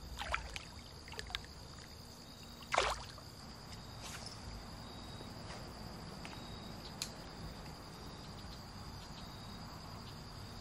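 A small bass splashing back into shallow pond water about three seconds in, with a few soft clicks and light water sloshing around it, over a steady high insect trill.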